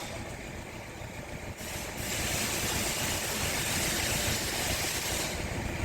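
2012 Hyundai i20 diesel engine idling roughly and shaking hard. It is misfiring because the cylinder 3 injector circuit is open. A steady hiss joins in about two seconds in and drops away near the end.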